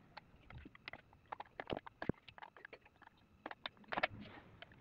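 Irregular small clicks and light knocks as hands handle the open sheet-metal case of a Quick 850A hot-air rework station and fit parts behind its front panel, with a short scraping rustle about four seconds in.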